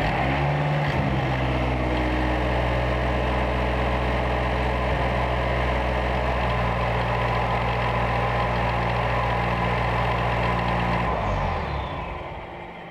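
Mazdaspeed 3's 2.3-litre turbocharged direct-injection four-cylinder idling steadily just after starting up, on its freshly rebuilt high-pressure fuel pump. The sound fades away near the end.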